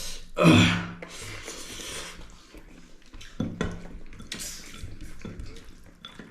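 Dishes and food being shifted about on a table: a loud brief rush of noise about half a second in, then scraping and rubbing with a couple of sharp knocks.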